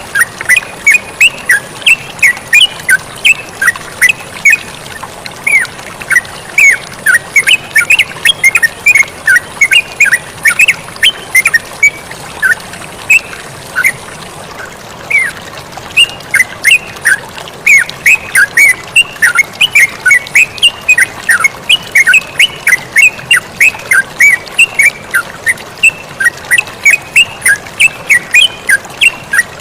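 Yellow-vented bulbul (terucukan) singing continuously in a rapid run of short, sharp chirping notes, several a second, over a steady hiss of flowing water.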